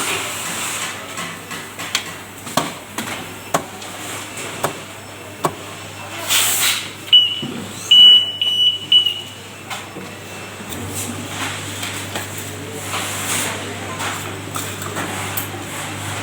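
Assembly noises of a coffee vending machine: several sharp clicks and knocks and a short hiss, then a high electronic beep lasting about two seconds. About ten seconds in, a steady low machine hum starts and keeps going.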